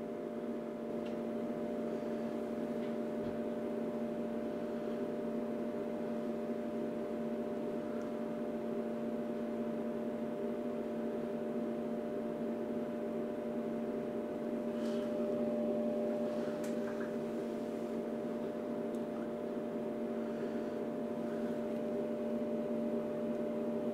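Steady electrical hum made of several steady tones, from the bench power supply running the amplifier board, with a couple of faint clicks a little past the middle.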